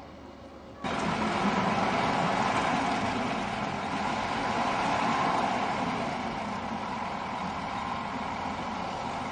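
Old Fiat railcar's engine running. The sound comes in abruptly about a second in, then holds steady, easing a little after about six seconds.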